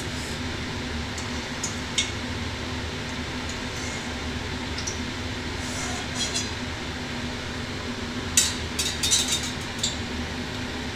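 Steady hum of a kitchen chimney exhaust fan, with a few clinks of a metal spatula on an aluminium wok and a quick cluster of metal clinks near the end as the batter bowl and its spoon are handled.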